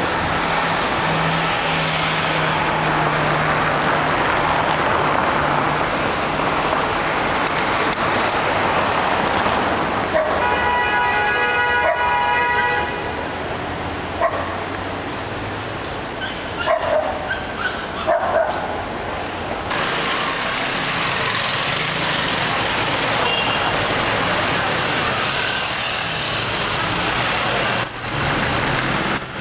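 City street traffic: car and motor-scooter engines running and passing over cobbles, with a steady low engine hum in the first part. Around the middle the traffic noise drops for several seconds, leaving a held high tone and a few short sharp sounds, then the traffic noise returns.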